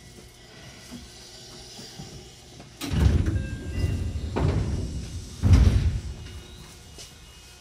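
Three heavy, low thumps, each dying away in well under a second, close together in the middle of a quiet stretch.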